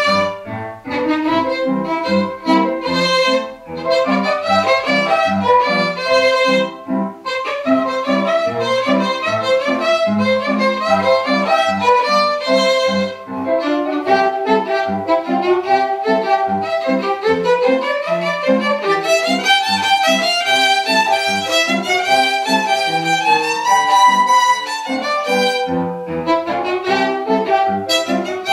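Violin playing a melody of many short notes, bowed, over a lower accompaniment.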